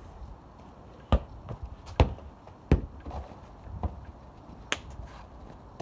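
A football being struck and bouncing: three sharp thuds about a second apart, the middle one loudest, then a few lighter knocks.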